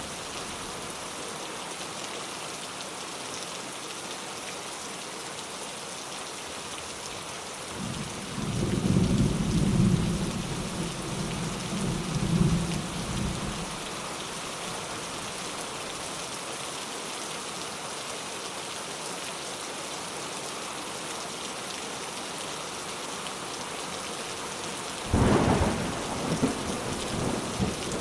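Steady rain falling, with thunder twice: a low rolling rumble lasting several seconds about a third of the way in, and a sharper, louder clap rumbling on near the end.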